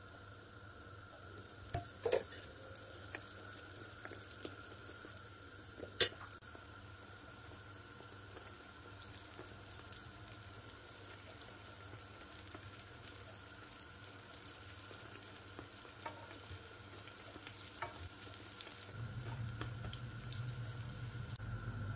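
Pişi dough rounds frying in hot oil in a pan: a steady sizzle with small crackles. Two sharp clicks come about two and six seconds in, and a low hum comes in near the end.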